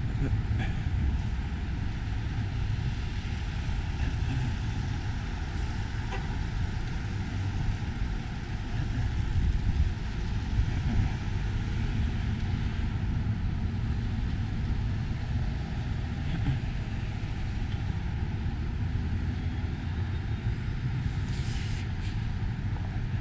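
Street traffic: cars and a pickup truck driving past, a steady low rumble of engines and tyres.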